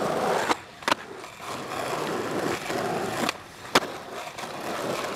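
Skateboard wheels rolling on asphalt, broken twice by a pair of sharp cracks about half a second apart: the tail popping and the board landing on a flatground trick. The second landing is the loudest crack.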